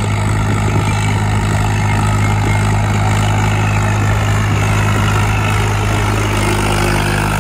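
Swaraj 855 tractor's three-cylinder diesel engine running steadily under load while pulling a harrow through dry soil.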